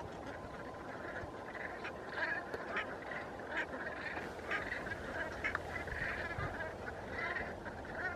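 A flock of red-breasted geese and brent geese calling: a steady chatter of many short, overlapping calls.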